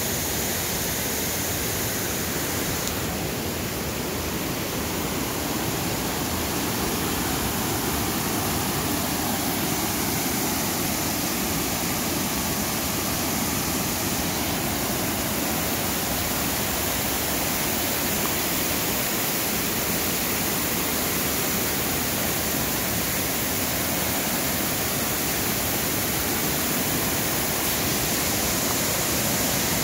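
Floodwater rushing down a rocky cascade: a creek in flood, its white water making a steady, unbroken rush.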